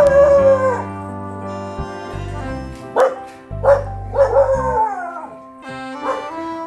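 A dog barking and howling over background music: a drawn-out call falling in pitch at the start, two short barks about three seconds in, a second long falling call, then a short bark near the end.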